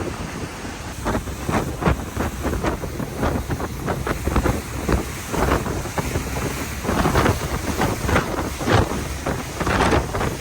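Wind buffeting the microphone in uneven gusts, over the steady low rush of a ferry under way on open water.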